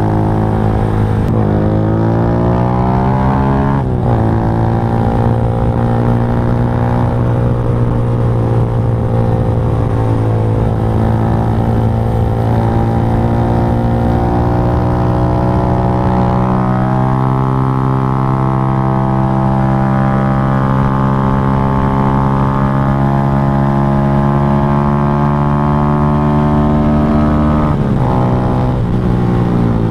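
Motorcycle engine running while riding, at a steady pitch for long stretches. The engine note drops and climbs again twice, a couple of seconds in and near the end, as with gear changes.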